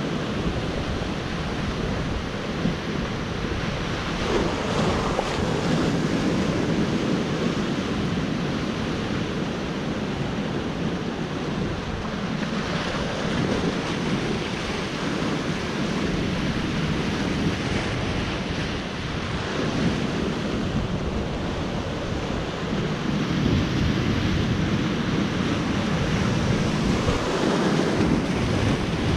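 Ocean surf breaking and washing over the rocks of a jetty, swelling and easing every several seconds and loudest near the end, with wind rumbling on the microphone.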